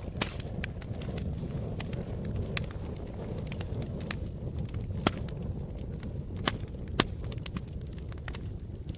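Wood campfire crackling: a steady low rumble with many irregular sharp pops and snaps, and a few louder pops a little after five seconds, around six and a half, and at seven seconds.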